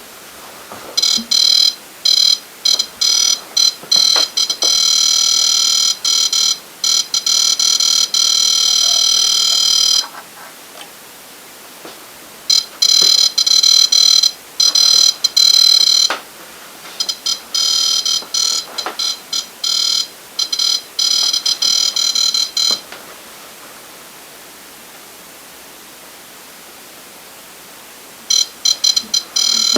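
Shrill electronic alarm tone from a ghost-hunting proximity sensor box going off. It sounds in long stretches that stutter on and off at their edges, stops for a few seconds twice, falls silent for several seconds, and starts again near the end. The alarm is set off by something close to the sensor.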